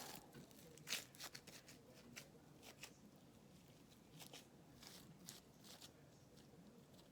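Faint, irregular sticky clicks and crackles of fluffy slime being handled and squished, over near silence.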